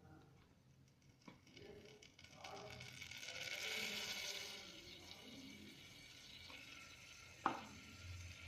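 Semolina and butter sizzling in a heated electric kettle while a spoon stirs it, the hiss swelling a couple of seconds in and easing off again, with one sharp tap of the spoon on the kettle about seven and a half seconds in.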